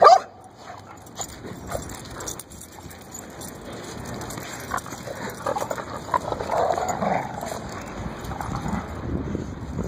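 Two pit bull-type dogs tussling over a large stick: a short, loud yip right at the start, then whines and rough dog noises over a scrappy rustle and scatter of small knocks.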